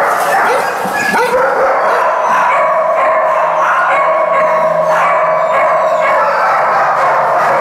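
Many kennelled dogs barking and howling at once, a steady loud din of overlapping barks and long held howls.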